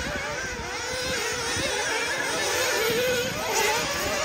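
Nitro engines of RC off-road buggies racing, their high buzzing pitch rising and falling as the cars accelerate and slow through the corners.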